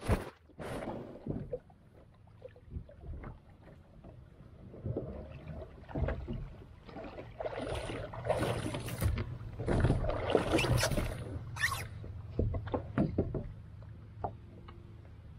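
Creek water splashing and sloshing in irregular bursts, with scattered knocks, loudest about eight to eleven seconds in.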